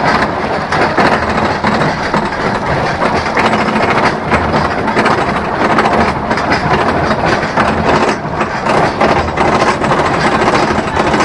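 Gemini roller coaster trains climbing the twin chain lift hills side by side: a continuous rapid clacking from the lift chain and the anti-rollback ratchets under the cars.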